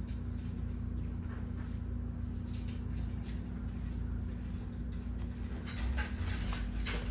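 Steady low mechanical hum, with faint rustling clicks about two and a half seconds in and again near the end.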